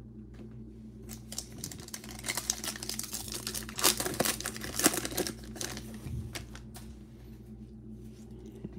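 A Panini Playoff trading-card pack's shiny wrapper crinkling and tearing open, with sharp crackles loudest about four to five seconds in, then fainter ticks as the cards inside are slid apart by hand.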